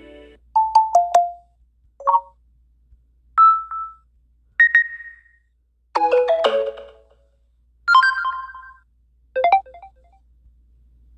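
Samsung Galaxy A71 5G notification sounds played one after another: about seven short electronic chimes of different pitches, each under a second long, with brief silences between them.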